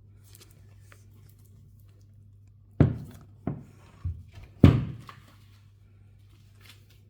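Four dull thuds in quick succession, about 0.6 s apart, the first and last the loudest, starting about three seconds in.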